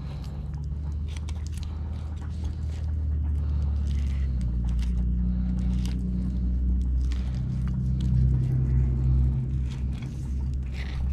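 Fillet knife scraping and clicking along a Rio Grande cichlid's rib cage as the fillet is cut away, over a low steady mechanical hum that shifts in pitch a couple of times.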